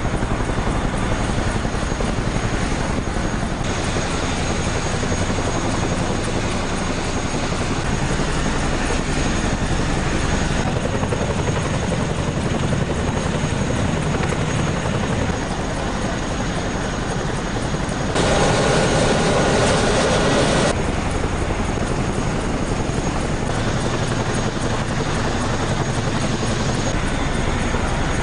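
CH-47 Chinook tandem-rotor helicopter running at close range: a loud, steady rotor beat over turbine noise. About two-thirds of the way in there is a louder stretch of a few seconds with a higher, steady whine.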